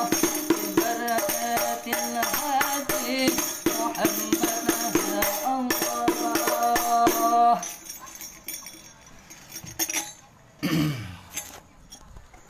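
Rebana frame drum playing the lanangan part, hand strokes in a quick steady rhythm with a man singing along. The playing stops about three-quarters of the way through, leaving a few scattered knocks and rustles as the recording phone is handled.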